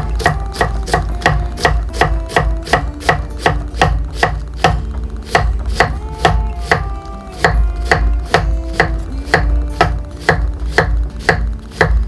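Kitchen knife chopping white cabbage into thin strips on a wooden cutting board: a steady run of sharp knife strikes on the board, about three a second.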